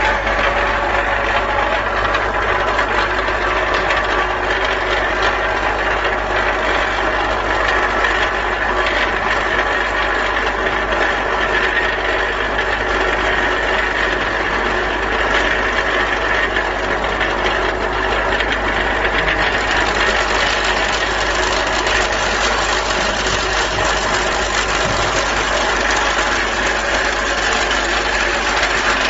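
Vibratory bowl feeder humming steadily while stainless steel billets rattle and clatter around its spiral track, the rattle growing brighter about two-thirds of the way in.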